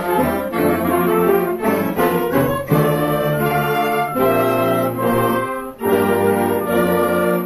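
Wind band playing: flutes, clarinets, saxophones and brass over a sousaphone bass, in sustained chords, with a brief break about six seconds in.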